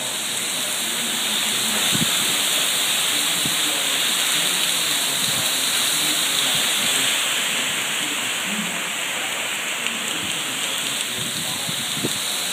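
Heavy tropical-storm rain pouring down in a steady hiss, with a few faint knocks.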